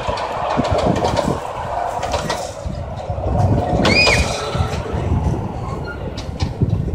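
5-inch gauge ride-on miniature railway train running along its track: a steady rumble of wheels on the rails with irregular clicks and knocks over the rail joints.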